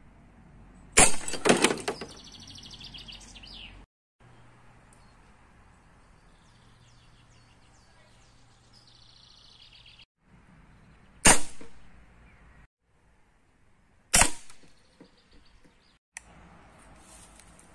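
Homemade PCP air rifle with a solenoid valve firing three times, each shot a sharp crack as the pellet strikes the target. The first comes about a second in and is followed by a second of rattling strikes; the other two come later, about three seconds apart. Birds chirp faintly between the shots.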